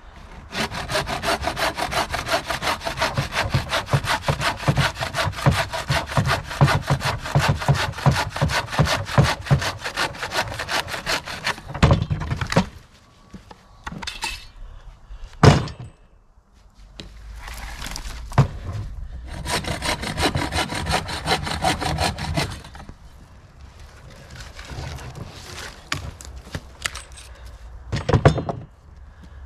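Rapid, even scraping strokes, several a second, in a long run and then a shorter one after a pause, with a few sharp knocks in between.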